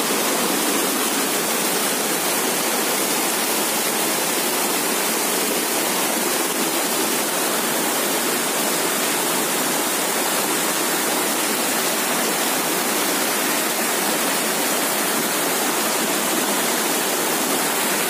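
Waterfall: a steady, even rush of falling water, with little deep rumble.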